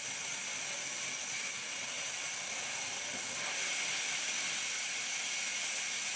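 Sawmill band saw running: a steady hiss with a few high, steady whining tones over it.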